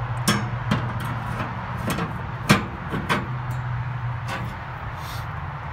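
Cast-iron grill grates clanking and knocking against the grill as they are set into place, about ten separate knocks with the loudest about halfway through, over a steady low hum.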